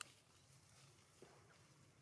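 Near silence: faint outdoor background, with one soft click right at the start.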